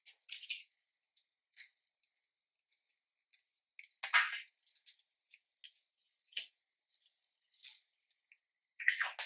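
Slime being squished and kneaded by hand: irregular short wet squishes and clicks, loudest about four seconds in and again near the end.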